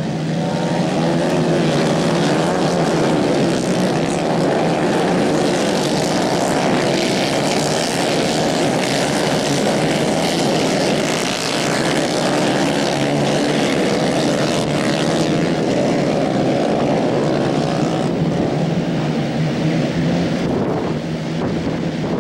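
Several 150 cc racing kart engines running hard together, their overlapping pitches rising and falling as the karts race past.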